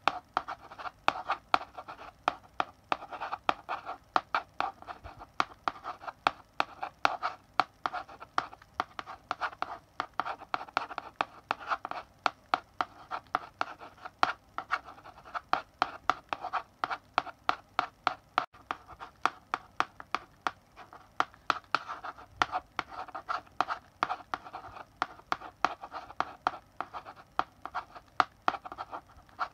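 Chalk writing on a blackboard: an irregular run of quick scratchy strokes punctuated by many sharp taps.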